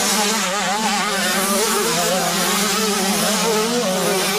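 Several motocross bikes racing together, their engines revving, the pitch rising and falling as the riders work the throttle.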